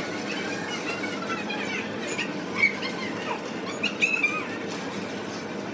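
Busy restaurant room noise: a steady murmur with scattered high squeaky sounds and a few sharp clinks of tableware, the loudest about two and a half seconds and four seconds in.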